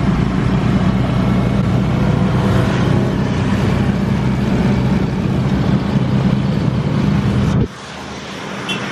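A vehicle engine running steadily at a constant pitch. It cuts off suddenly about three-quarters of the way through and gives way to quieter road noise.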